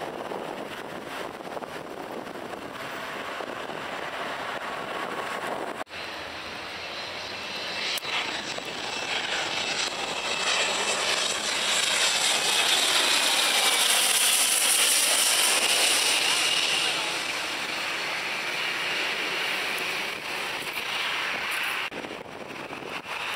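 Small business jet passing low overhead: the engines' rumble and whine build up, are loudest midway, then ease off, with the whine falling in pitch as it goes by.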